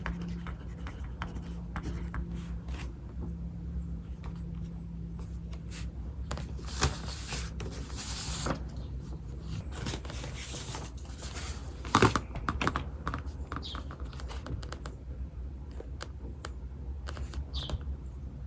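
Pen writing on paper: small scratching strokes and clicks, with two longer stretches of paper rustling in the middle and a sharp tap about twelve seconds in. A bird chirps faintly twice near the end.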